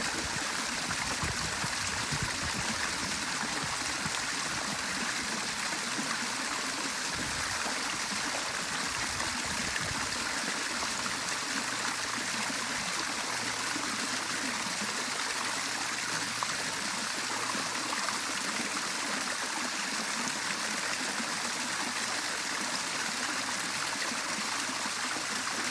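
Small rock waterfall running into a backyard fish pond: a steady splashing trickle of water over stacked rocks.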